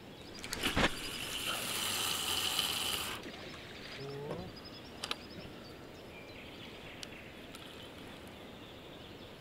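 A sharp click, then a fishing reel being cranked: a steady whirr for about two and a half seconds that stops abruptly. A single click follows about five seconds in.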